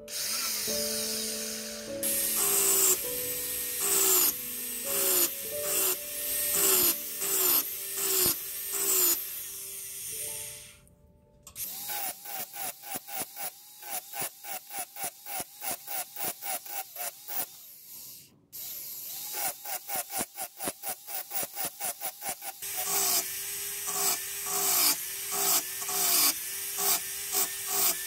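A handheld rotary tool with a fine pointed burr run in short bursts, about two to three a second, each a brief whine that rises and falls as the tool spins up and stops, cutting small dimples one by one into a silver pencil barrel. The bursts break off briefly twice.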